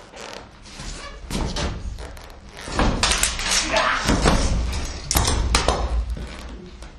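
Stage-combat scuffle: heavy thumps of boots on the stage floor and sharp knocks as a long-handled fokos (Hungarian shepherd's axe) is swung at the head and the defender closes in. A run of hits and stamps starts about a second in and is loudest in the middle.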